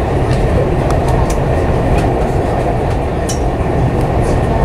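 Dubai Metro train running, heard from inside the carriage: a steady low rumble with a few light clicks.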